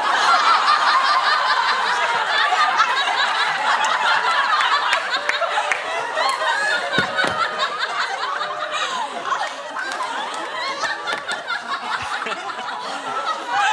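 Game-show studio audience and contestants laughing together, many voices at once, loudest at the outset and easing a little but still going strong near the end.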